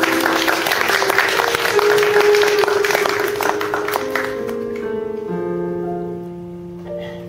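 Audience applause, many hands clapping, over piano music. The clapping fades out about four seconds in, leaving the piano playing held notes.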